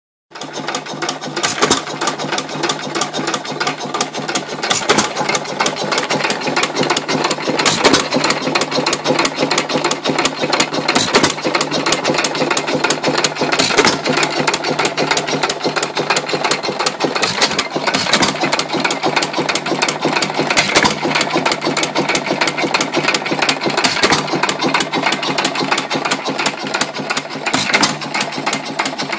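Jaeger 2 hp hit-and-miss engine running: a steady mechanical clatter while the flywheels spin, with a louder beat about every three seconds.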